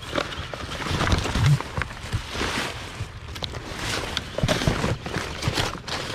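Irregular rustling, scraping and knocking of cardboard boxes and household items being rummaged through by hand.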